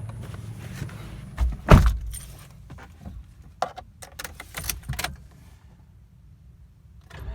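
Keys jangling and clicking as they are handled in a car, with one heavy thump a little under two seconds in.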